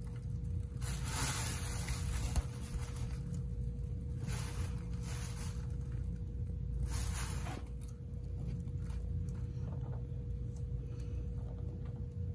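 Fabric of a cat play tunnel rustling and scraping as a cat moves and plays with a plush toy mouse inside it. It comes in three bursts about a second long each, over a steady low hum.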